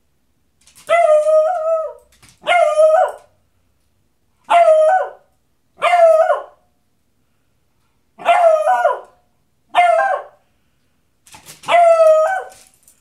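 A beagle baying: seven short bays about a second or two apart, each held on one pitch and dropping at the end. The dog is upset by a cat rolling in catnip.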